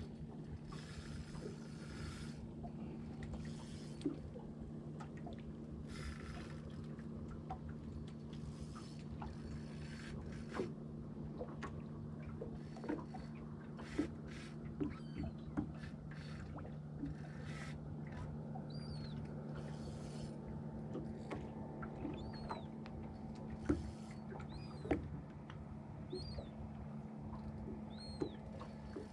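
Scattered clicks and knocks of fishing gear handled on a boat deck, with a few brief rustles, over a steady low hum. In the last third, short high bird chirps repeat every second or so.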